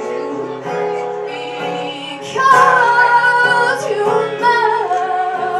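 Music: a woman singing long held notes over a plucked guitar accompaniment, the voice coming in louder about two and a half seconds in.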